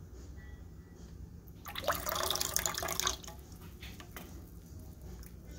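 Hot tea poured from a ladle back into a saucepan, splashing for about a second and a half near the middle.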